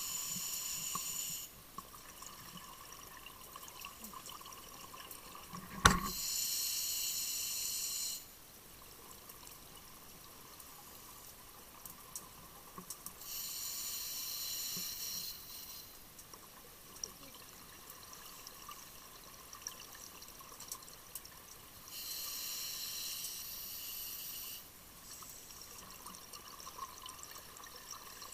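A scuba diver breathing underwater through a regulator: four rushing bursts of exhaled bubbles, each about two seconds long and some seven seconds apart, with a fainter steady hiss between them. A single sharp knock, the loudest sound, comes about six seconds in, just before the second burst.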